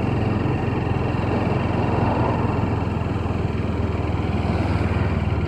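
Motorcycle engine running steadily at an even cruising speed, heard from on the bike, with a constant low drone and road noise.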